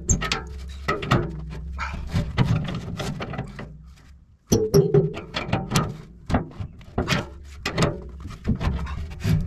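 Adjustable wrench tightening the clamp bolt of a clamp-on pallet fork onto a steel tractor loader bucket lip: a run of irregular metal clicks and clanks, with a brief pause about four seconds in.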